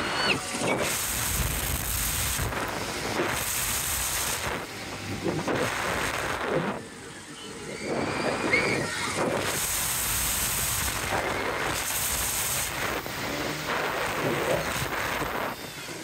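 Wind rushing over the microphone of a camera carried on a swinging, spinning fairground thrill ride, coming in repeated surges every couple of seconds with a short lull about seven seconds in. Brief riders' voices are heard between the gusts.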